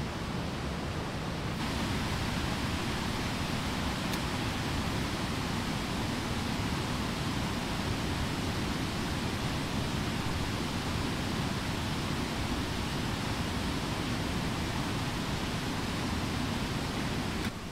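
Steady rushing outdoor noise with no distinct events; it brightens slightly about a second and a half in and drops a little near the end.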